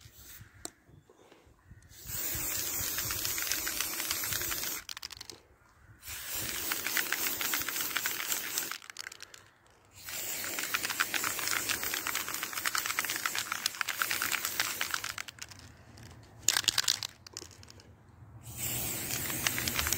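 Aerosol can of spray paint hissing as paint is sprayed onto the steel body of a woodburning stove, in long bursts of a few seconds each with short pauses between, starting about two seconds in.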